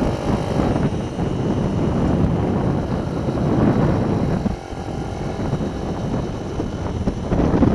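Mini-bike engine running under way, mixed with heavy wind buffeting on an on-board camera microphone. The level drops briefly about four and a half seconds in.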